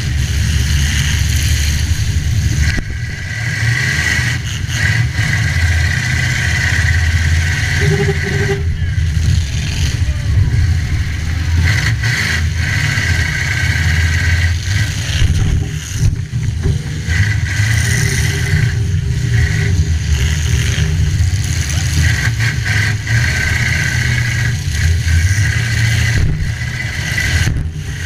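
Demolition derby car engines running hard and revving up and down, with intermittent knocks and clatter of metal.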